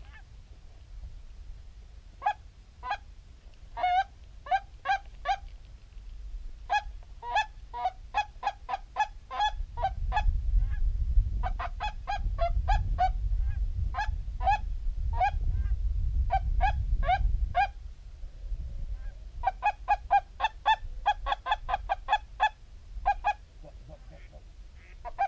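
Geese honking: strings of short, nasal honks in several bursts with brief pauses between them. A low rumble sits underneath for several seconds in the middle.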